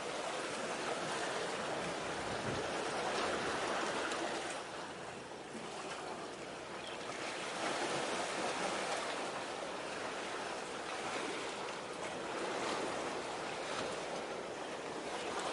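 Small waves washing on the shore: a steady rush of water that swells and eases every few seconds.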